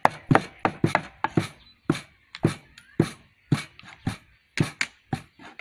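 Meat cleaver chopping raw pork on a thick round wooden chopping board: a quick, uneven run of sharp chops, about three a second.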